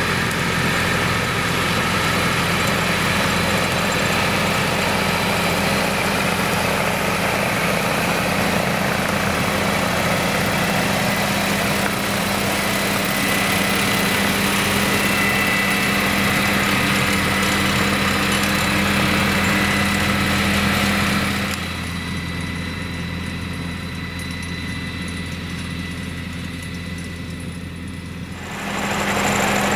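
Tractor engine running steadily under load while a front-mounted cutter bar mower cuts standing grass. Quieter and duller for several seconds in the last third, then full again near the end.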